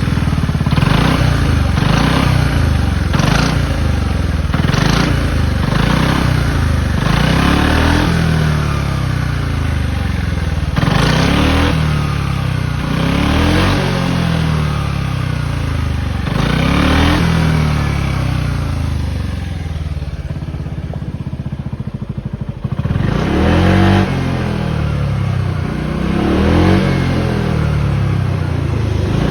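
Yamaha Maxam 250 scooter's single-cylinder four-stroke engine revved through a Ducati stock silencer fitted as a slip-on exhaust: a string of quick throttle blips, then longer revs, settling to idle for a few seconds past the middle before being revved again.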